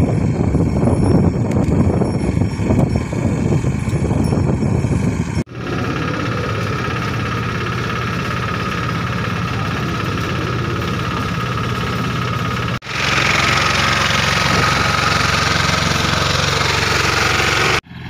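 Engine of a small Bullet mini tractor running steadily with a tractor-mounted soybean reaper while it cuts a standing soybean crop. The sound changes abruptly twice.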